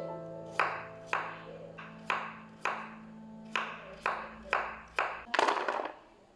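Knife chopping on a cutting board: about eight sharp separate strokes at an uneven pace, then a longer, rougher burst near the end, over soft background music.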